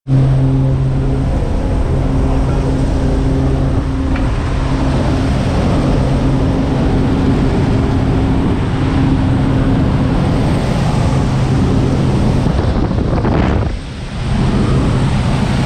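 Jump plane's engine and propeller noise, a steady low hum, mixed with wind rushing in through the open jump door; the noise dips briefly near the end.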